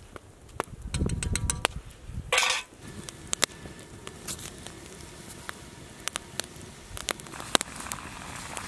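Wood fire crackling and popping under a cooking pot, with scattered sharp pops and a short burst of noise about two and a half seconds in.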